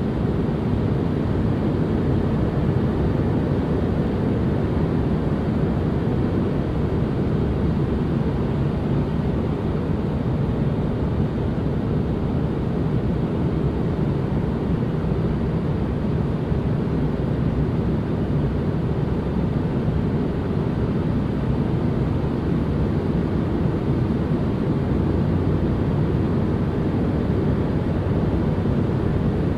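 Steady, unchanging ambient noise of the kind used for relaxation tracks. It is weighted toward the low end, a deep, dull hiss with little treble.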